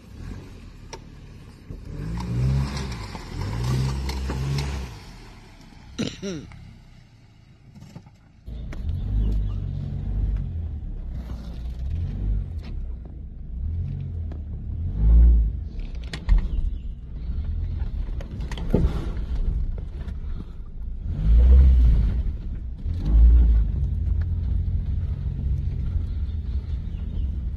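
Daihatsu Terios 4WD engine running at low speed as the car crawls over a rutted dirt track, with heavy thumps from the body and suspension over the bumps, loudest three times in the second half. For most of it the sound is heard from inside the cabin.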